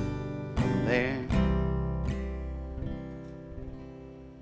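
Acoustic guitar strumming the closing chords of a slow song: two last strums about half a second and a second and a half in, then the chord rings out and fades away.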